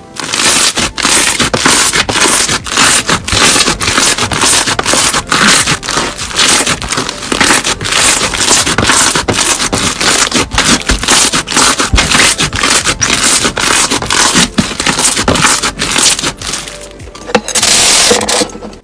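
Crunchy slime being squeezed and pressed by hand close to the microphone: a dense, loud run of crackling and crunching pops.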